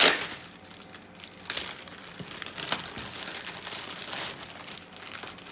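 Packaging crinkling and crackling in irregular bursts as the Mini-Z remote controller is unwrapped, with the sharpest crackle right at the start.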